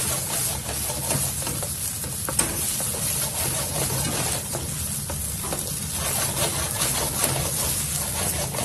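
Rice sizzling in hot oil and sofregit in a paella pan while it is stirred and scraped, toasting until golden brown before the stock goes in.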